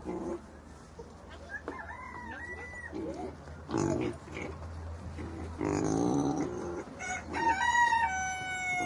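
Farmyard animals: a pig grunting in short bursts while hens call with rising and falling clucks. Near the end a chicken gives one long drawn-out call, the loudest sound here.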